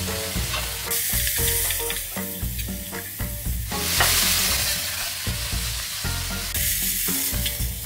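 Ground pork, garlic and green onion sizzling in oil in a nonstick wok while a metal spoon stirs and scrapes through it; the sizzle swells and fades as the meat is turned.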